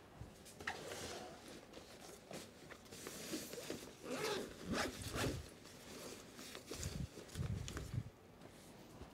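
Rubber hand air blower squeezed several times, giving short hissy puffs of air to clear dust off a camera lens UV filter, with handling rustle and a few low knocks near the end.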